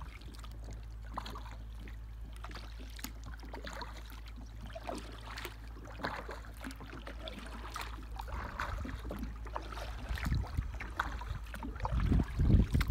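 Water lapping and trickling against the hull of a small paddle boat drifting on a calm river, with scattered small drips and knocks. Low wind rumble on the microphone builds near the end.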